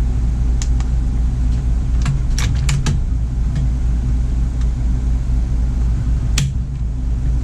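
Small clicks of the rifle and trigger gauge being handled, then one sharp click about six and a half seconds in as the Savage AccuTrigger breaks on a dry-fire pull. The trigger is measured at under two pounds, with no creep. A steady low hum runs underneath.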